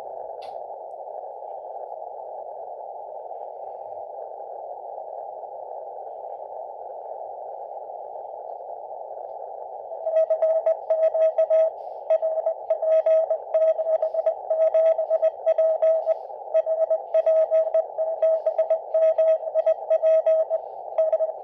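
Shortwave receiver on CW with a narrow filter: about ten seconds of band hiss, then a Morse code signal returns as a tone keyed on and off in dots and dashes. The signal is a long-path CW station heard over the North Pole through the aurora.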